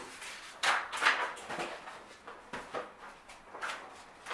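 Pen drawing on paper: a handful of short scratchy strokes, irregularly spaced.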